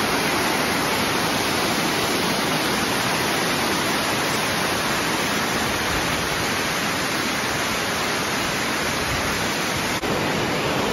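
Amicalola Falls, a tall cascading waterfall, rushing steadily over rock: an even wash of falling water. It dips for a moment near the end as the shot changes, then goes on.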